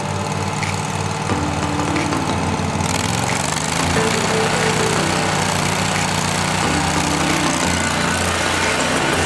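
Toro stand-on commercial lawn mower engine running steadily, growing louder about three seconds in as it is throttled up and the mower drives off.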